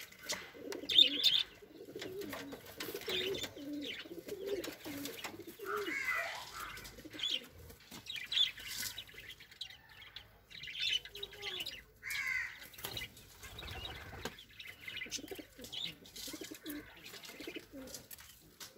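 Capuchine pigeons cooing in low, wavering runs, most steadily in the first few seconds and again later, with higher bird chirps and a few short clicks throughout.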